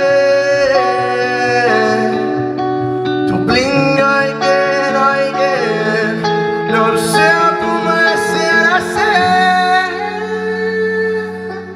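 Live pop song: electric guitar chords under a male voice holding long, sliding notes without clear words.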